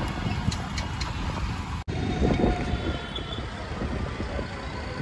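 Steady rumble of road traffic and wind from riding in an open-sided cart through city traffic. The sound drops out briefly about two seconds in.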